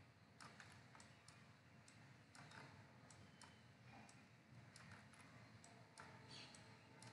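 Faint computer mouse clicks, more than a dozen at irregular intervals, over a low steady hum.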